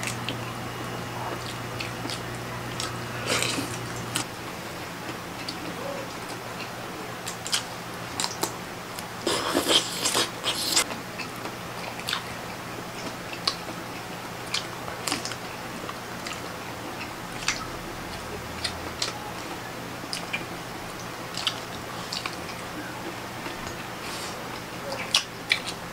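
Close-up eating sounds of people chewing cooked octopus and shrimp by hand: wet chewing and mouth noises with scattered sharp clicks and crackles, and a burst of louder crackling about ten seconds in. A faint steady hum sits underneath.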